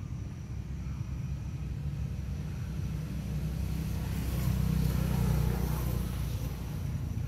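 Low rumble of road traffic, swelling as a vehicle passes about four to six seconds in.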